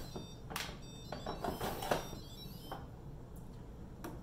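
Electric pressure cooker lids being turned and locked shut: a few separate plastic clicks and knocks spread over the seconds, with faint short high tones in the first half.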